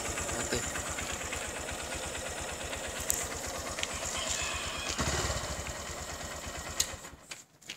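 Honda motorcycle engine idling with a steady fast low beat, then cutting out near the end with a click.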